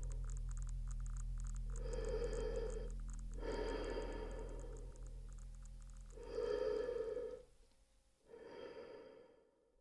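Experimental electronic soundtrack: a steady low hum under faint, fast ticking, with four swells of hissing noise, each about a second long and carrying faint ringing tones. The hum and ticking stop about seven and a half seconds in, and the last swell fades away.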